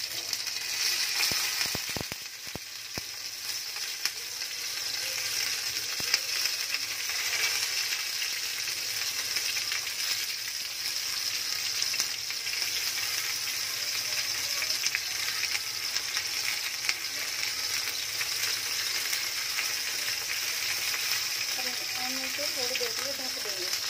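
Masala-stuffed small eggplants frying in hot oil with cumin seeds in a non-stick pan: a steady sizzle, with a few light knocks in the first few seconds as pieces go into the pan.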